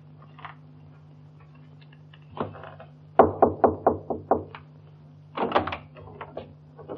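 Knocking on a door: a quick run of about six knocks, then a second short burst of knocks a couple of seconds later. A steady low hum runs underneath.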